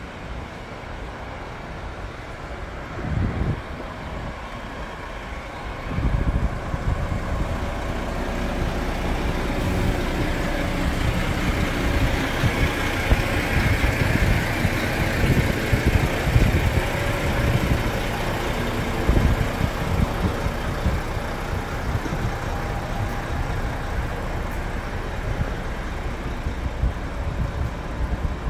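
Street traffic: a motor vehicle's engine running close by, with an irregular low rumble of wind on the microphone. It grows louder about six seconds in.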